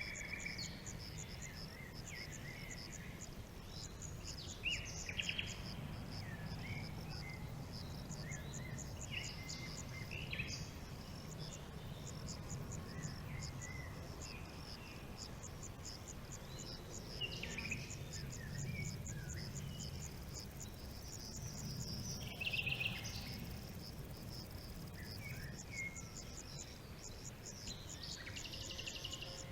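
Insects trilling steadily in a fast, high pulsing chorus, with scattered short bird chirps and calls over a low background rumble.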